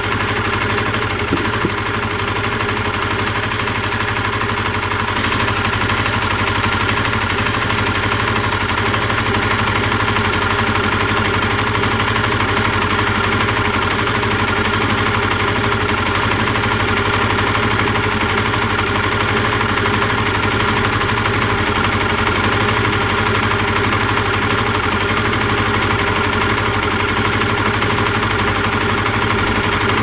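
Honda CBR125R's single-cylinder four-stroke engine idling steadily, heard up close at the cylinder head, while its spark plug lead arcs at the plug cap. The owner takes this leaking spark as the cause of the engine's abnormal rattling, ticking noise.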